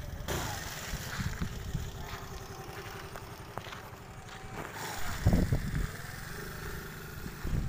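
Small scooter engine idling, with a brief louder rumble about five seconds in.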